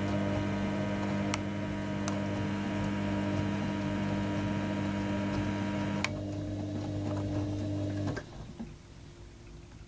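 Panasonic front-loading washing machine's drum motor running with a steady hum as the drum turns the laundry through the wash water, with a few light clicks. Part of the motor tone stops about six seconds in, and the rest cuts off about two seconds later as the drum stops.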